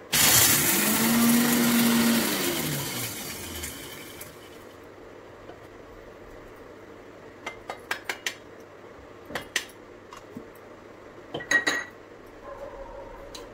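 Electric mixer grinder with a small stainless-steel jar running in one short burst of about two and a half seconds, grinding makhana coarsely; then the motor spins down with a falling hum. A few sharp clinks of the steel jar and lid being handled follow later.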